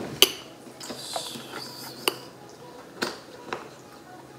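Kitchen utensils and containers knocking and clinking, about four light, separate knocks, as half a cup of all-purpose flour is measured out.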